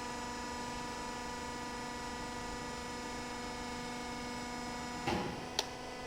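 Steady electrical machine hum made of several even tones, typical of a running electric motor or power unit. About five seconds in there is a brief rustle, then a single sharp click.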